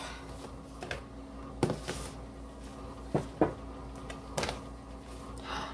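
A few light knocks and clacks from a lidded plastic food container being handled and set down on a kitchen counter, over a faint steady hum.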